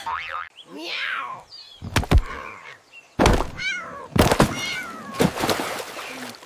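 Short, high animal-like cries that slide in pitch, mostly downward, broken up by several heavy thuds, the loudest about two seconds in.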